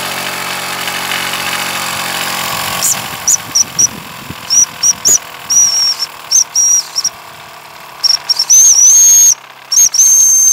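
Mamod SP4 toy steam engine running with a steady hiss. From about three seconds in, its boiler steam whistle sounds in a string of short, high toots, ending in two longer, louder blasts.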